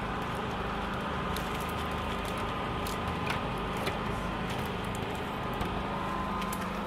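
Steady background hum, with a few faint ticks and crinkles as a plastic backing sheet is pressed and smoothed by hand over wet window film on glass.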